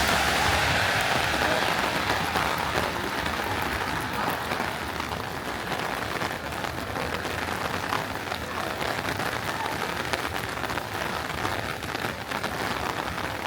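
Heavy rain falling on street surfaces, a dense hiss of many small drop impacts, easing a little over the first few seconds.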